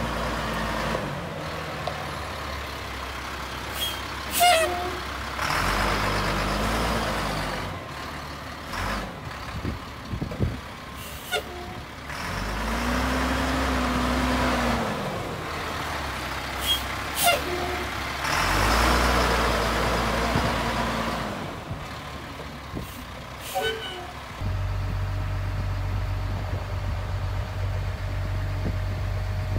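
The CAT 7.2-litre straight-six diesel of a 2000 Sterling L7500 crane truck revving up and dropping back to idle about four times, with a few short sharp clicks in between. Near the end it settles into a steady low drone.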